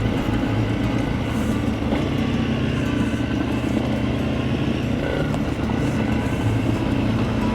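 Honda CRF300 Rally's single-cylinder four-stroke engine running steadily as the motorcycle is ridden, with no rise or fall in engine speed.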